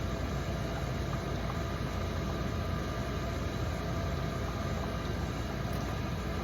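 Steady low machine rumble with a hiss over it, unchanging throughout.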